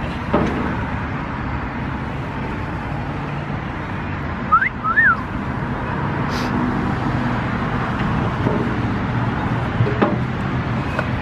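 Steady outdoor vehicle and traffic noise with a low engine hum, and two short high chirps about four and a half seconds in.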